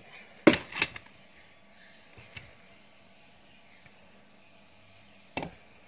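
Plastic clicks and knocks from handling a knapsack sprayer's hose fitting and plastic spray handle: two sharp clicks close together about half a second in, a faint tick a couple of seconds later, and one more knock near the end.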